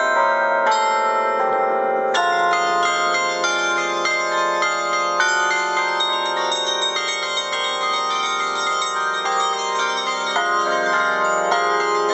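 Carillon music: cast bronze bells struck from a baton keyboard and pedals, ringing out a melody over chords, with each new note or chord coming in every second or two while the earlier ones ring on and overlap.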